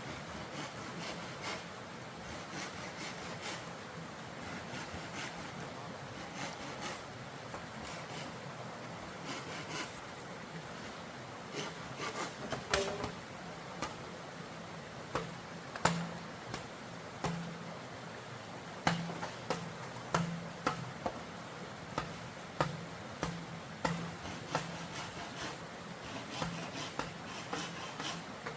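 Irregular clicks, knocks and scraping over a faint steady noise. The knocks grow sharper and louder from about halfway through.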